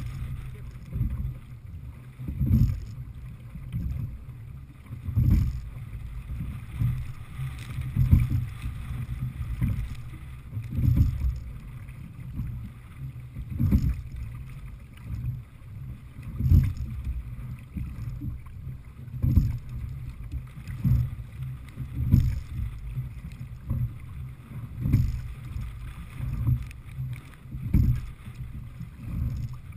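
Sliding-seat sculling boat being rowed at a steady pace: a low thump about every three seconds with each oar stroke, over a steady rush of water and wind against the hull.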